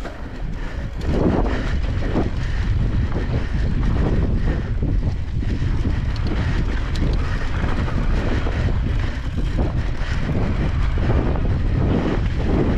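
Wind buffeting the microphone of a camera riding on an e-bike, a steady low rumble. Irregular crunching and rattling from the tyres and bike on a sandy trail sounds through it, from about a second in.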